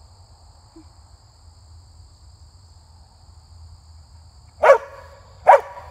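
A large dog barks twice, loud and sharp, about a second apart near the end.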